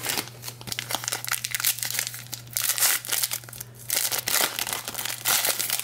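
A sealed trading-card pack's wrapper being torn open and crinkled by hand, in a run of crackling bursts that grow heavier over the last few seconds.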